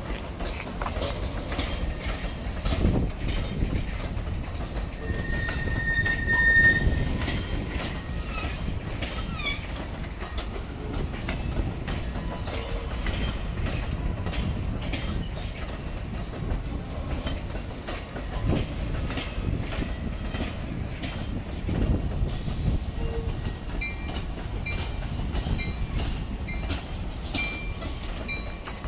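NJ Transit bilevel passenger coaches rolling past with a steady rumble, wheels clacking over rail joints. A high wheel squeal comes about six seconds in, and short squeals return near the end.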